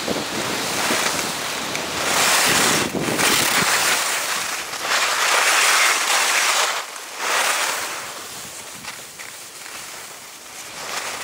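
Skis hissing and scraping over snow with wind rushing over the camera's microphone. The noise swells a few seconds in and eases off toward the end.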